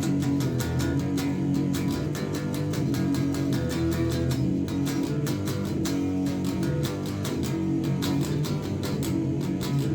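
Electric guitar played through a Behringer Super Fuzz pedal into a Sony stereo's microphone input, improvising a solo with held notes over a drum beat ticking about four times a second. It is recorded from a distance off the loudspeaker.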